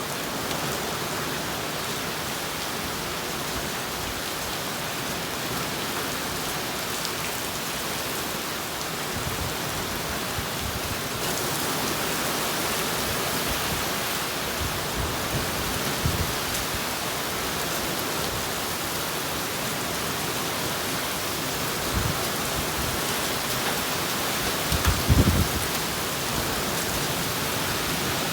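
Heavy rain pouring down in a steady hiss, growing heavier about a third of the way through. Near the end there are a few short low thumps, the loudest about 25 seconds in.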